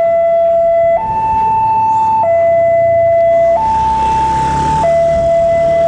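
Railway level-crossing warning alarm: an electronic two-tone signal alternating between a low and a high note about every second and a quarter. It signals that a train is approaching and the crossing barrier is closing.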